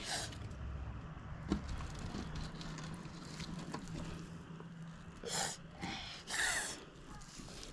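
Faint fillet-knife sounds: a thin blade cutting and scraping along a fish fillet on a plastic board, with light ticks and two short hissing scrapes about five and six and a half seconds in.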